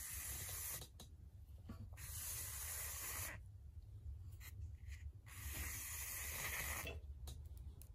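Beeswaxed sewing thread drawn through a hand-sewn Coptic binding as a link stitch is pulled, giving a soft rasping hiss in three long draws with a few light clicks between them.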